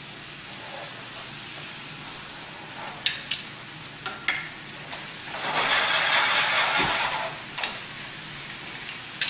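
Chicken sizzling in a frying pan of sauce, with a few sharp clicks of metal tongs. About halfway through a much louder sizzle rises for over a second, as chicken pieces go into the hot pan.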